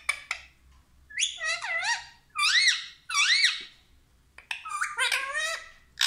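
Rose-ringed parakeet making a string of squeaky calls whose pitch swoops up and down, in two groups with a short pause between, after a few quick clicks at the start.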